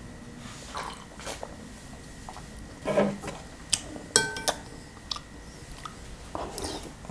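Eating cold kimchi noodle soup: chewing, with metal utensils clicking against a bowl and one clear ringing clink just after four seconds in.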